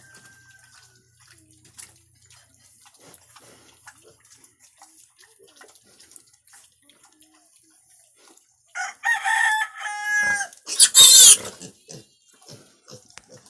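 A rooster crows once, about two-thirds of the way in. The crow goes from a pitched opening through a rapid rolling stretch to a loud harsh end, lasting under three seconds. Faint scattered clicks before and after.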